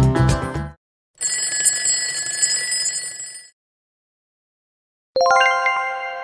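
Upbeat background music cuts off, then an electric-bell ringing sound effect, like an alarm clock, rings for about two seconds to mark time up. After a pause, a quick run of bright chime notes strikes and rings on, fading slowly: the answer-reveal chime.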